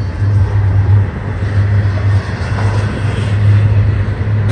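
Double-stack container freight train of well cars rolling past close by: a steady rumble of steel wheels on the rails with a strong low drone.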